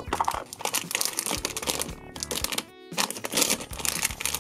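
Crinkling of a plastic blind bag being pulled from a plastic egg, handled and torn open, over background music, with a short break a little after the middle.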